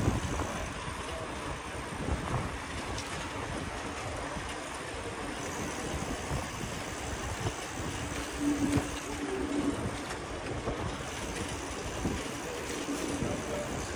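Wind buffeting the microphone over the rumble of riding a bicycle on city streets, with a short faint tone about eight and a half seconds in.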